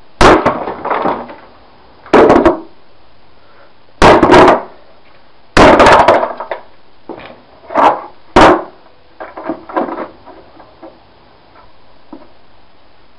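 Axe blows striking the hollow yellow plastic head of a James vacuum cleaner on concrete paving: six heavy strikes a second or two apart, then a few lighter knocks and clatter before it goes quieter near the end.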